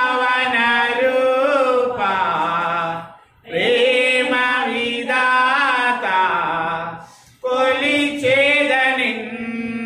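A man singing a hymn solo into a handheld microphone, holding long notes in phrases a few seconds long with short breaks between them.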